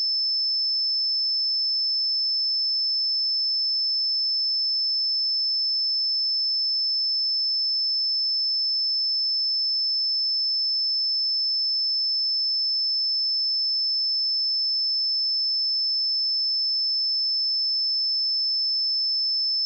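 Continuous pure sine-wave test tone at 5264 Hz, a single high-pitched steady whistle-like tone held at constant level.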